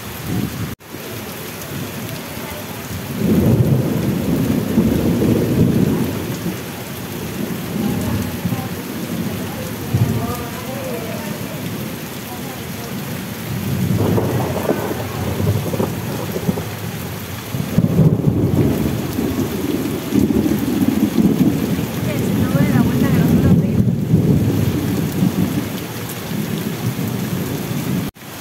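Heavy tropical rain pouring steadily, with thunder rolling several times; the longest and loudest roll comes about two-thirds of the way through.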